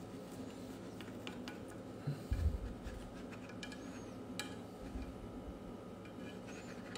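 A nylon spatula working at egg in a nonstick frying pan, lifting its edges: faint scrapes and a few light clicks against the pan, with a dull low thump about two and a half seconds in.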